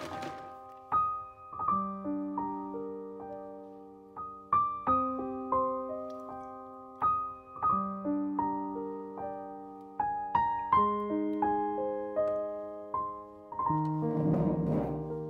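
Background music: a solo piano playing a gentle melody of struck notes and chords, each note ringing and fading. A brief noise sounds under the piano near the end.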